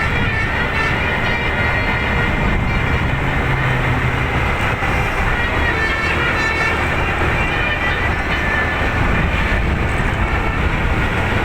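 Telolet basuri musical air horn playing a continuous multi-note melody, with shifting high notes over a steady low rumble.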